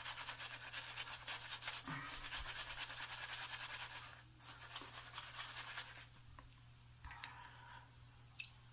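Two-band badger shaving brush scrubbing soap lather onto a two-day stubbled face: fast, brisk bristle scratching that thins out after about four seconds into quieter, scattered rubbing.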